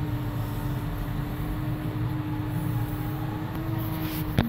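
John Deere 6715 tractor engine running steadily under load while pulling a field cultivator, heard from inside the cab as a low rumble with a steady hum. A single sharp click comes just before the end.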